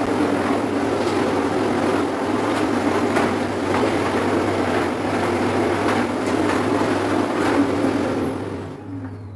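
Steady loud rushing noise that dies away near the end.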